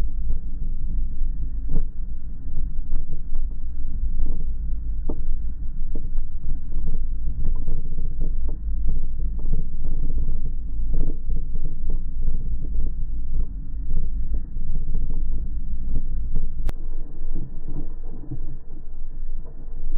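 Storm noise: rain beating down with a deep continuous rumble and frequent sharp taps. The deep rumble drops away abruptly about seventeen seconds in.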